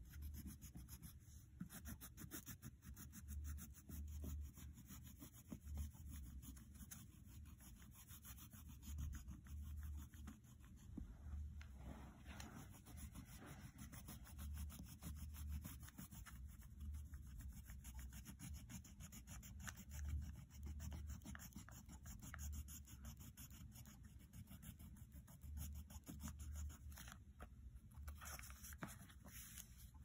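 Wax crayon scribbling on notebook paper: a faint, continuous scratchy rubbing of quick back-and-forth strokes as an area is coloured in, with soft low thuds along with it.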